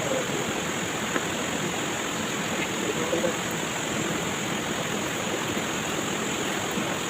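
Steady rushing of flowing stream water, with a few faint ticks.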